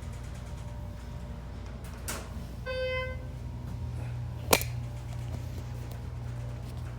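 Schindler HT330A elevator cab with a steady low hum, a single electronic chime a little under three seconds in, and a sharp click about a second and a half later.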